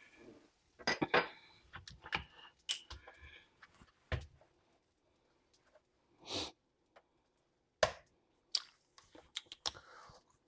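Kitchen utensils and a stainless steel pan clinking and knocking: an irregular string of sharp taps and clicks, with a short swish about six seconds in.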